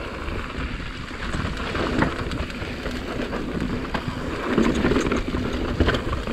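Mountain bike running down a dry dirt trail: steady tyre noise over packed dirt and loose rock, with scattered knocks and rattles from the bike.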